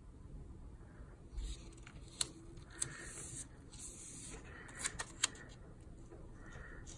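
Stickers being peeled from their backing and pressed by hand onto paper planner pages: faint paper rustling with a few small, sharp clicks.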